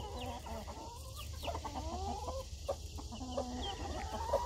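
Mother hen clucking in a run of short, soft calls, with her young chicks giving a few high peeps. This is her ordinary clucking, not yet the food call that brings the chicks down the ramp.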